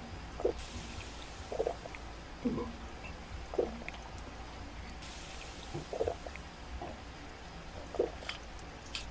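Close-miked chewing of a burger: soft, wet mouth and squishing sounds coming about once a second, with a low steady hum underneath.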